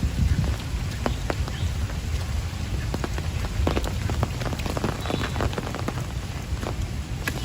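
Rain falling, with many separate drops striking a surface close by and a steady low rumble underneath.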